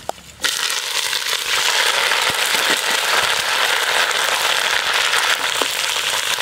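Curry leaves and green chillies dropped into hot oil: a sudden loud spattering crackle about half a second in, settling into steady sizzling as they fry.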